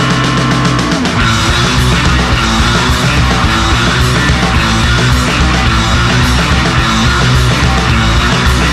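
Loud heavy rock music with distorted guitar and drums; the music shifts to a new section about a second in.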